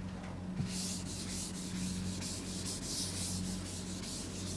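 Faint scratching of a pen writing on paper, many quick strokes, as an equation is written out. A steady low mains hum lies beneath it.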